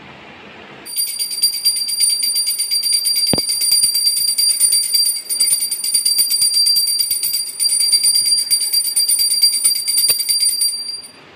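Small brass puja hand bell rung rapidly and without a break during worship: a fast run of clapper strikes under a high, steady ring. It starts about a second in and stops near the end.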